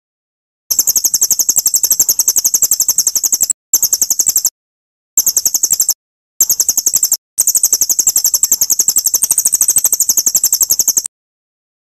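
A small songbird's fast, even trill of high-pitched chips, about seven notes a second, in five stretches that start and stop suddenly with short silent gaps, as in an edited, looped bird-song training recording.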